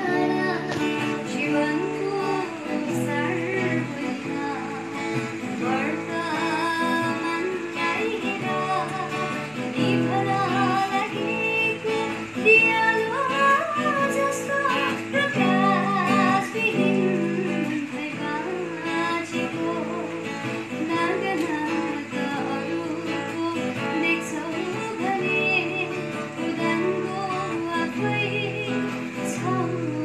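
A woman singing a song to her own strummed acoustic guitar chords.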